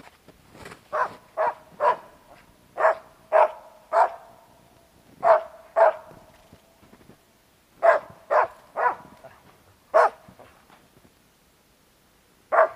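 Hunting dog barking at a squirrel in the tree, marking where it is. About a dozen short, sharp barks come in runs of two or three, with a pause of about two seconds near the end.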